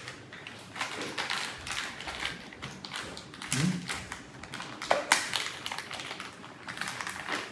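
Irregular light taps, knocks and rustles of hands handling the parts of a carpeted cat tree with sisal posts as it is being assembled, with a sharper knock about five seconds in.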